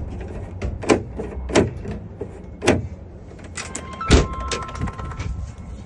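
Clicks and knocks of hand work on a truck compartment lock mechanism as its spring is being refitted: a run of small clicks with four sharper knocks, the loudest about four seconds in, and a brief metallic ring around it.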